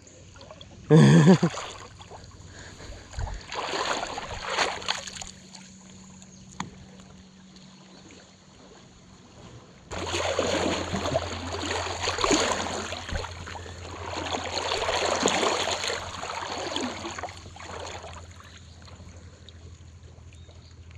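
River water sloshing and splashing in a run of uneven swells, the longest stretch in the second half, with a short voice call about a second in and a steady low hum setting in about halfway through.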